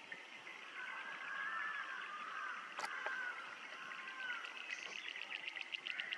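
Natural ambience: insects chirring in a fast, even pulse, with gliding whistles rising and falling through the middle, and a single sharp click about three seconds in.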